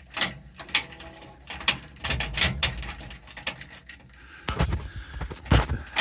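A string of sharp clicks and knocks from a switch and the controls of an old vehicle being worked by hand, with a few heavier thumps around two seconds in and near the end. The engine is not running.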